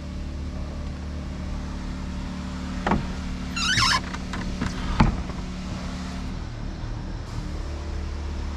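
A steady low motor hum, with a knock about three seconds in, a brief wavering high squeak just after, and a sharp knock about five seconds in.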